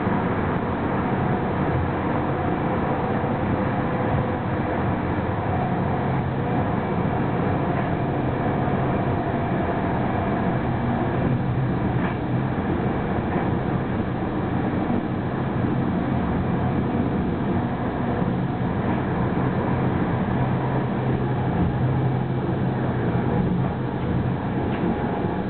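ÖBB Eurocity train running at high speed, heard from inside the train: a steady rumbling roll of wheels on rails with a low hum. A few faint clicks come through about halfway and near the end.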